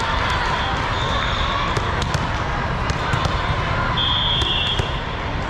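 Busy indoor volleyball tournament hall: steady crowd chatter with scattered sharp ball hits and bounces from the courts. A short, high referee's whistle sounds about four seconds in.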